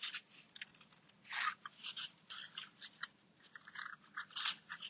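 Scissors snipping through paper in a quick, irregular run of short cuts, with the paper rustling between them, as leaf shapes are cut out.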